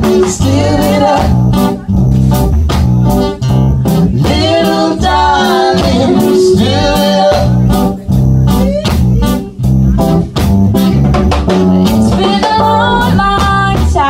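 Live reggae band playing with a steady beat: acoustic guitar, keyboard and drums, with singing over the top.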